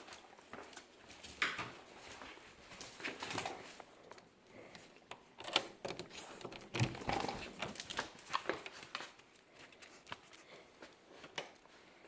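Dog whining in short, soft bursts now and then, among scattered light clicks and taps.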